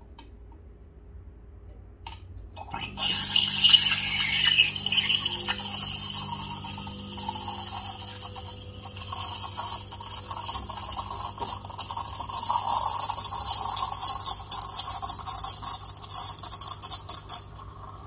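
Milesto Elaine M3 (EM19-M3) dual-boiler espresso machine's steam wand steaming milk in a pitcher: a loud hissing starts about three seconds in and cuts off suddenly near the end.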